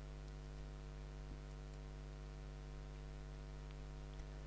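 Steady, faint electrical mains hum with a light hiss, and a faint click or two.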